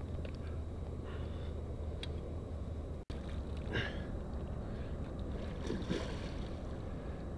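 Hooked tarpon splashing and thrashing at the water's surface, with a splash a little after the middle and a stronger flurry of splashes near the end, over a steady wind rumble on the microphone.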